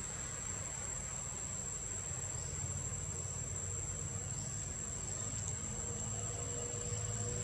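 Steady, high-pitched drone of insects in the trees, one unbroken tone, over a faint low rumble.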